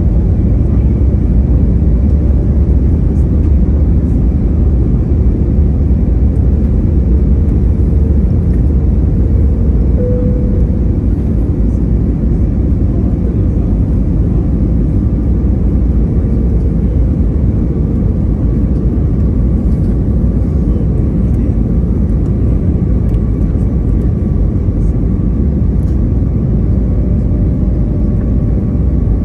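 Steady cabin rumble of an Airbus A320neo in flight: Pratt & Whitney geared-turbofan engines and rushing air, deep and unbroken, heard from inside the passenger cabin.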